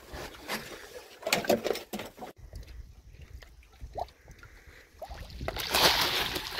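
Hooked carp splashing at the water surface as it is drawn to the landing net, loudest in the last second or so; before that, scattered knocks from handling the rod and net.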